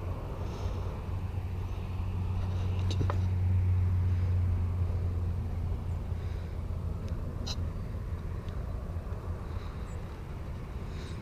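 Low, steady engine hum of a passing motor vehicle, growing louder over the first few seconds and then slowly fading, with a couple of light clicks.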